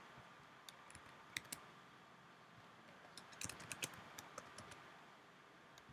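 Faint computer keyboard typing: a few scattered key clicks, then a quick run of keystrokes a little past the middle, over quiet room hiss.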